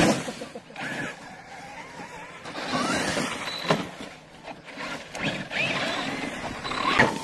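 Electric RC cars' brushless motors whining and rising in pitch as they accelerate, a few times, over the hiss of tyres and running gear. A sharp knock comes near the end.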